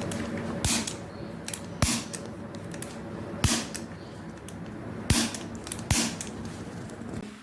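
Five sharp cracks during a chiropractic adjustment, irregularly spaced about a second apart, with a few fainter clicks between them.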